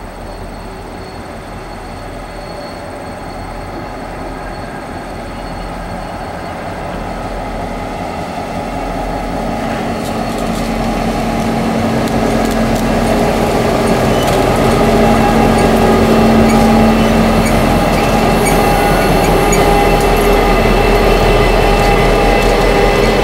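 Diesel engines of a pair of Norfolk Southern locomotives running light, with no cars, approaching slowly and growing steadily louder over the first dozen seconds, then running past close by. From about halfway through, the wheels tick over the rail.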